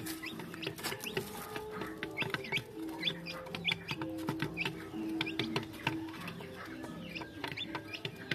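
Young Ayam Cemani chickens clucking and peeping in many short, high calls while pecking grain, with sharp taps of beaks on the wooden board. Background music with held notes runs underneath.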